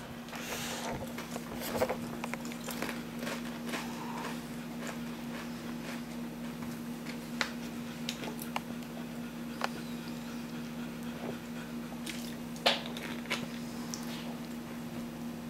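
A person eating chips, chewing with scattered sharp crunches. A steady low hum runs underneath.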